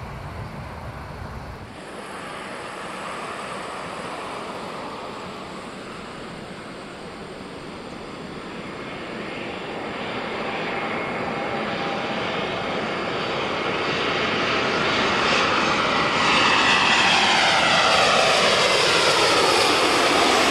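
Airbus A320neo with Pratt & Whitney PW1100G geared turbofan engines on landing approach, its engine noise growing steadily louder as it nears and passes close overhead, with whining tones sliding down in pitch as it goes by.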